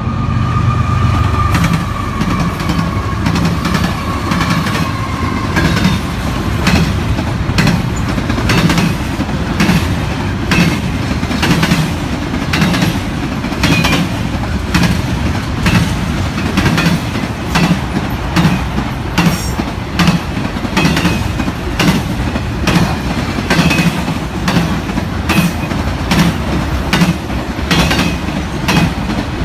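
Intermodal freight train rolling past close by, its wheels clacking over rail joints in a steady rhythm of about one to two clacks a second. A heavier rumble from the diesel locomotives is heard in the first couple of seconds.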